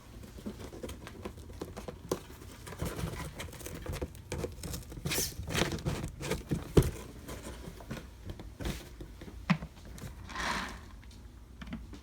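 Kittens scuffling and playing, their paws and claws making irregular light taps, scratches and rustles. There is a short breathy burst near the end.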